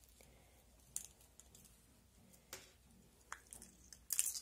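Faint handling sounds: hands smoothing a knitted sweater and picking up a small plastic retractable tape measure, with a few soft clicks and a louder cluster of clicks and rustling near the end.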